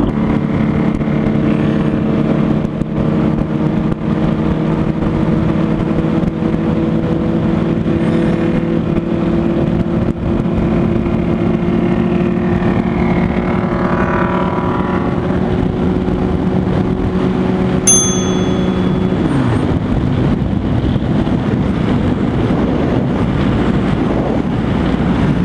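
Suzuki GSX-R sport bike's inline-four engine running at a steady cruising rpm, its pitch falling away about three-quarters of the way through as the throttle closes. Midway a second engine revs up and back down, and a short metallic ding sounds just before the drop.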